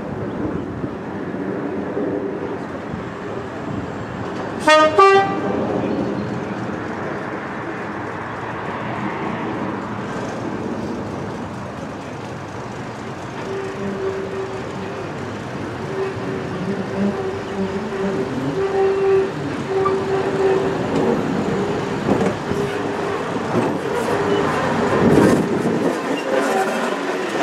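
Heritage first-generation diesel multiple unit giving one short blast on its horn about five seconds in. Its diesel engines then run and grow louder as it pulls toward and past the listener, with wheels clicking over the rail joints near the end.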